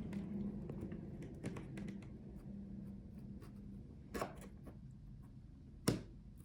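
Faint handling of a laptop's display parts, with light scraping and scattered small clicks as the LCD panel is worked loose from its glued back cover. Two sharper taps come about four and six seconds in, the second the loudest, over a faint low hum that fades midway.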